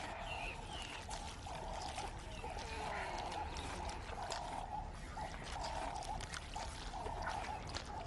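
Outdoor wildlife ambience: a call repeats roughly once a second, with soft clicks and rustles from a warthog close up in the grass.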